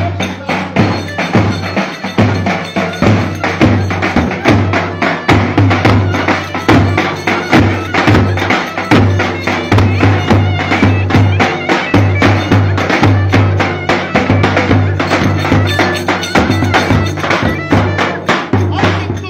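Lively traditional Turkish dance music with a fast, steady beat and sharp clacking percussion, played for wedding dancing.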